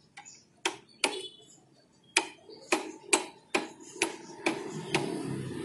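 Clutch housing of a Yamaha Jupiter Z being worked by hand, giving about a dozen sharp clicks, roughly two a second, as loose parts knock against each other: its rubber dampers are worn out and crumbling, so the housing has free play.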